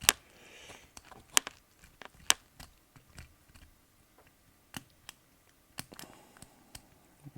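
Lock picking in a door-knob lock: a hook pick working the pins while a tension wrench is pressed a little harder, giving sharp metallic clicks at irregular intervals, about five clear ones among fainter ticks. The lock does not open.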